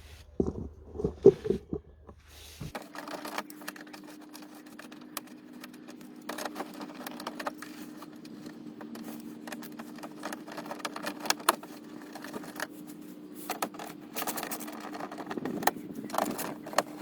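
Irregular metallic clicks and clinks of a socket wrench working the splash guard's 8mm and 10mm bolts, over a steady low hum that starts about three seconds in.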